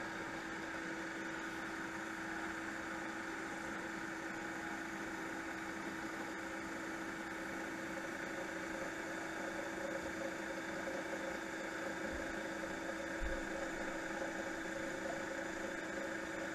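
Wood lathe running steadily, a constant motor hum, while a paper towel is held against the spinning pen blanks to apply a friction polish.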